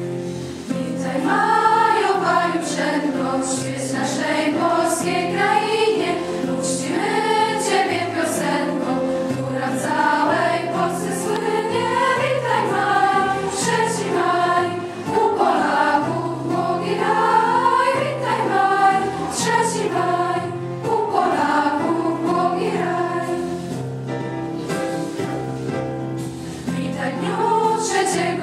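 School choir of young voices singing a song together in one melody line, over an instrumental accompaniment of steady low notes.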